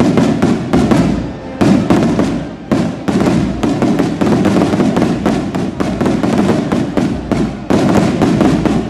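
A volley of festival rockets bursting overhead: rapid, overlapping bangs and crackling, with sharper loud reports every second or so.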